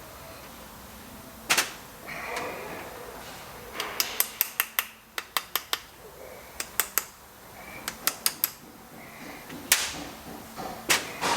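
Hand ratchet wrench clicking in short quick runs while Ferrari 308 brake caliper bolts are run in, with a few louder single metal knocks between the runs.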